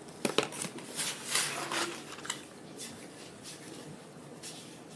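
Eating and food-handling noises at the table: a cluster of clicks and rustles in the first couple of seconds, then sparser small clicks.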